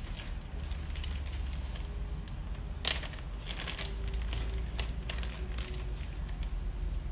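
Plastic packaging crinkling and crackling in the hands as a small accessory is unwrapped, in irregular sharp crackles, the loudest about three seconds in with a cluster just after.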